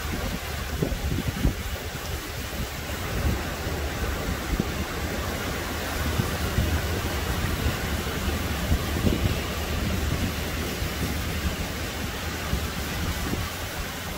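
Small surf breaking and washing up a sandy beach, a steady rushing hiss, with wind buffeting the microphone in a low rumble.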